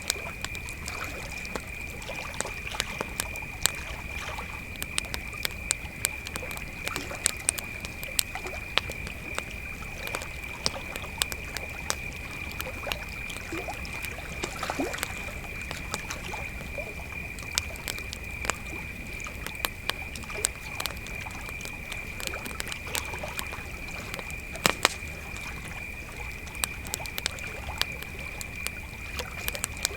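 Crickets chirping in a steady, high-pitched chorus, with a campfire crackling and popping in frequent sharp snaps over it.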